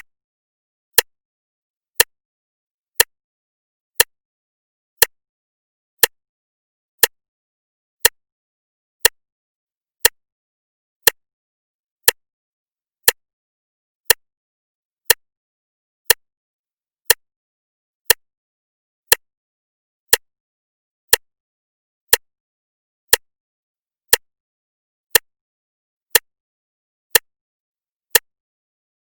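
Clock ticking, one sharp tick a second with silence between.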